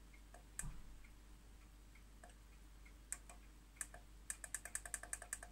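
Small plastic clicks of keys or buttons being pressed. A few come scattered, then a quick run of about a dozen near the end, over a faint steady hum.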